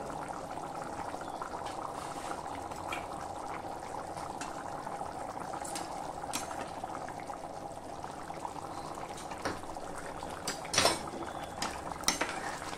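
Tomato rice bubbling at a hard boil in a pressure cooker pot. A metal ladle clinks against the pot several times as it is stirred, mostly in the second half, the loudest clink near the end.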